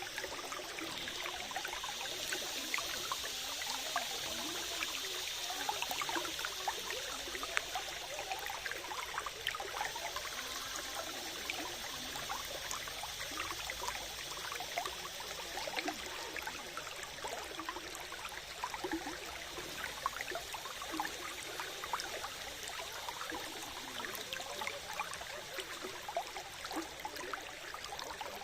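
Water trickling and burbling steadily in a small stream, with a constant patter of small splashes.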